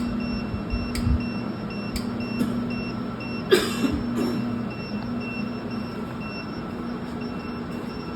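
Modular UPS cabinets running with a steady electrical hum and a faint high beep repeating rapidly. A few sharp clicks come in the first two and a half seconds, and a brief hiss about three and a half seconds in.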